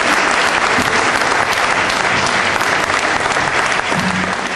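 Audience applauding steadily, a dense clapping from a full hall, easing slightly near the end; a brief low tone sounds about four seconds in.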